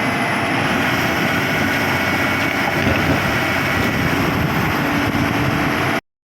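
Komatsu PC200 excavator's diesel engine running steadily, with a faint high whine over it; the sound cuts off suddenly near the end.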